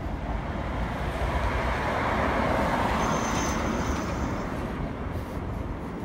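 Road traffic on the bridge roadway: a vehicle passes, its tyre noise swelling and fading over a few seconds, over a steady low rumble.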